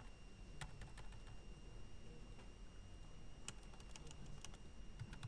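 Computer keyboard being typed on in two short runs of key clicks, about half a second in and again a little past three seconds in, over a faint steady high-pitched electrical whine.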